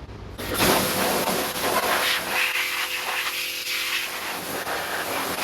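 Pressure washer spraying a jet of water on the front suspension, a loud steady hiss starting about half a second in.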